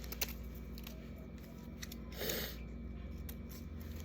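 Faint handling noises while goodie bags are put together: a soft click near the start and a brief rustle about two seconds in, over a low steady hum.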